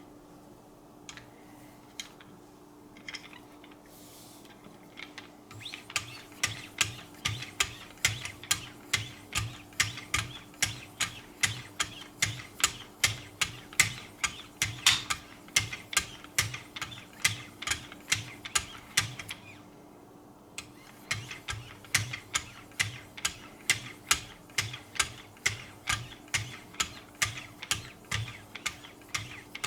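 Knife edge being stroked back and forth on the paddles of a Wicked Edge guided sharpening system fitted with 9 micron lapping film: a regular scraping about twice a second, starting after a few scattered clicks and pausing briefly about two-thirds of the way through. A faint steady hum sits underneath.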